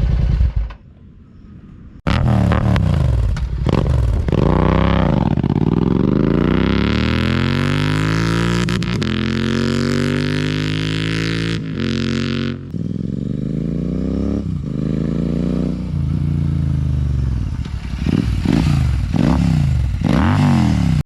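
Royal Enfield Continental GT 650's 648 cc parallel-twin engine through a Red Rooster aftermarket exhaust, being revved while stationary. There is one long rise in revs held high for several seconds, then a second rev, and then a string of short throttle blips near the end.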